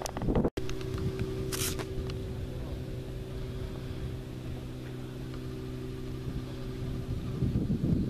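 A steady low engine hum, with wind rumbling on the microphone near the end.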